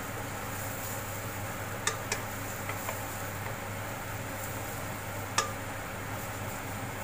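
Minced garlic sizzling steadily in melted butter in a nonstick wok as it fries toward fragrant, stirred with a wooden spatula that knocks against the pan a few times, loudest about five seconds in.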